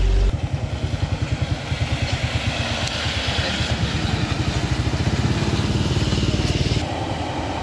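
A motor vehicle's engine running close by with a fast, even, pulsing beat. The beat fades and gives way to a steadier rumble about seven seconds in.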